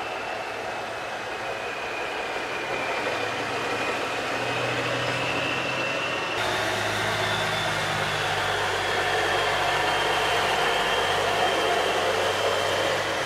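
Peterbilt 359's diesel engine running slowly, heard from inside the cab, with a thin steady high whine over the rumble. The sound changes abruptly about six seconds in.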